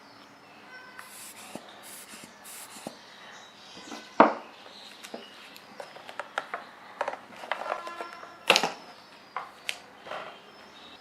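Handling noises from small objects being picked up and moved: scattered clicks and light knocks with short rustles, and two louder knocks about four seconds in and near eight and a half seconds.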